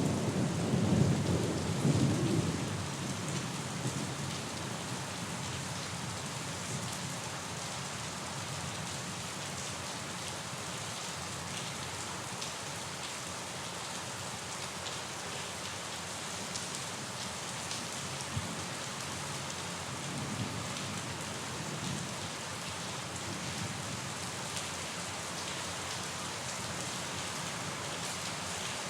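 Steady rain falling. A loud low rumble of thunder opens and dies away within the first few seconds, and a fainter rumble swells again about two-thirds of the way through.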